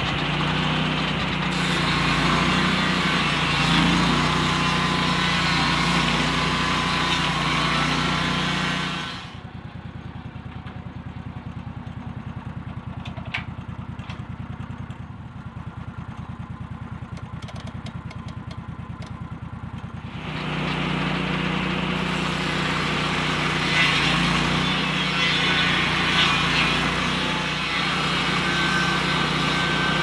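Lucas Mill swing-blade sawmill's engine running under load as the circular blade cuts through a log. About nine seconds in it drops back to a low idle for about ten seconds, then revs up again and the cut resumes.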